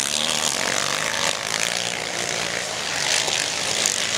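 Engines of motocross sidecar outfits running on the track, a steady drone.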